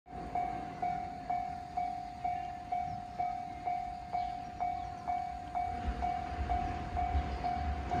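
Japanese level crossing warning bell ringing about twice a second, steady and evenly spaced. From about six seconds in, a low rumble rises under it as a 521 series electric train approaches.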